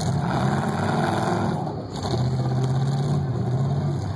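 Demolition derby car engines revving, rising and falling in pitch through the first second and a half, then running steadier.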